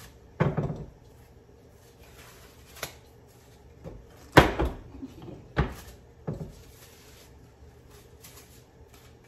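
Wooden tortilla press knocking as its lid and lever handle are worked to flatten corn masa: about five sharp wooden clunks, the loudest about four seconds in, with a soft crinkle of the plastic sheet being handled between them.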